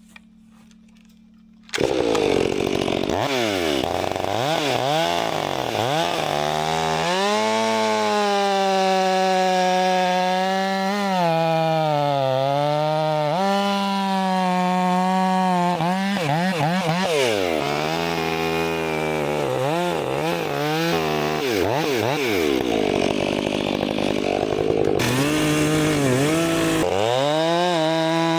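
Gas chainsaw throttled up about two seconds in and cutting through an oak log, its engine pitch sagging under load and climbing again as the chain bites and clears, over and over.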